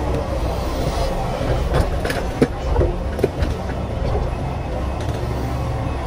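Komatsu hydraulic excavator's diesel engine running steadily under load as it swings a full bucket over a dump truck and empties it. Several sharp knocks and clatters come about two to three seconds in.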